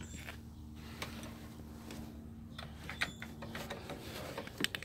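Hand tools working on engine fasteners: a few faint scattered clicks and metal clinks, a small cluster near the end, over a steady low hum.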